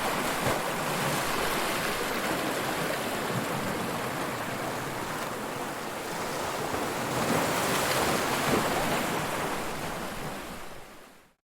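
Ocean surf: waves breaking and washing in a continuous rush, with one wave swelling up about seven seconds in. The sound then fades out quickly and stops just before the end.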